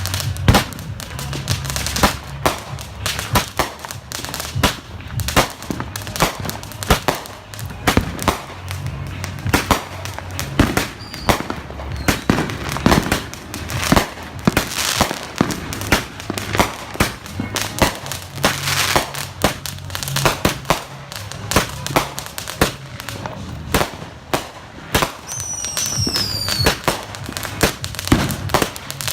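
Consumer fireworks and firecrackers going off close by in rapid, overlapping bangs and crackles, with no let-up. A short falling whistle comes near the end.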